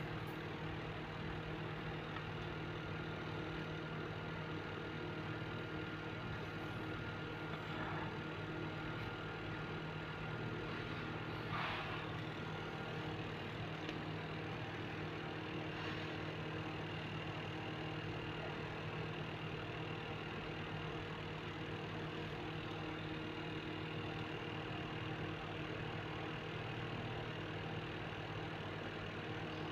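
A steady motor hum with an even, unchanging pitch, broken by a few faint clicks.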